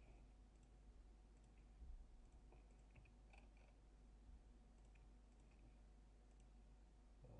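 Faint computer mouse clicks, scattered irregularly, over a low steady hum.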